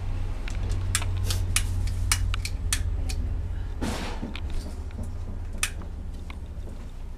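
Long-nosed butane utility lighter clicking as its igniter is pressed again and again: several sharp clicks in quick succession, a short rustle about four seconds in, and one more click near the end as the flame catches on a candle. A steady low hum runs underneath.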